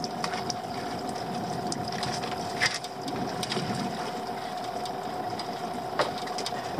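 Small boat's outboard engine idling with a steady hum. Two sharp knocks, about two and a half seconds in and near the end, come from a lobster pot being handled on the gunwale.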